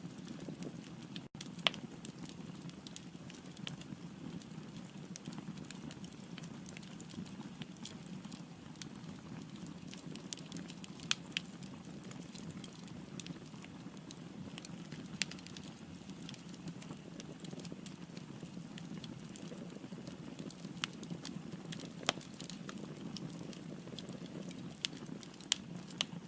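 Firewood burning in a fireplace: a steady low rush of the flames with sharp crackles and pops scattered through it every second or two.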